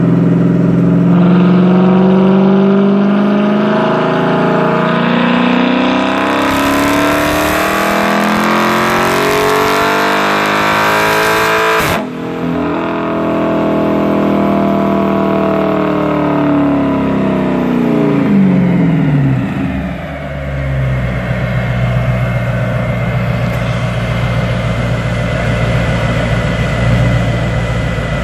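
Dodge Charger engine making a full-throttle pull on a chassis dyno. The revs climb steadily for about twelve seconds and cut off sharply. The revs then wind down over several seconds and settle into a steady idle.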